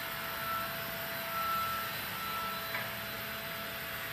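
Handheld power tool running steadily against a steel awning frame: a constant whine over an even hiss, with the whine swelling and fading every half second or so.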